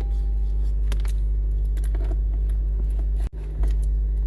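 Small clicks and rattles of a portable tire inflator's 12 V plug and cord being handled and pushed into a car's power socket, over a steady low hum that drops out briefly about three-quarters of the way in.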